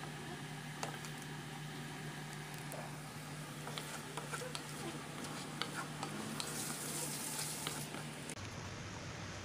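Black tiger prawns sizzling in a thick sauce in a nonstick wok while a wooden spatula stirs them, with scattered clicks and scrapes of the spatula against the pan. A steady low hum runs underneath and stops shortly before the end.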